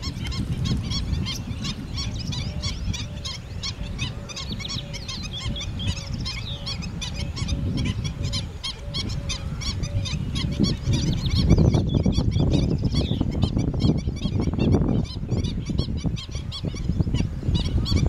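A flock of birds calling, with many short calls overlapping throughout. Under them is a low rumble of wind on the microphone that gusts louder about two-thirds of the way through.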